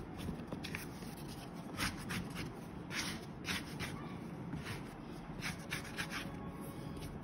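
Sourdough dough being pushed and tucked by hand and plastic scraper across a floured silicone mat while it is pre-shaped: several short scraping and rubbing strokes.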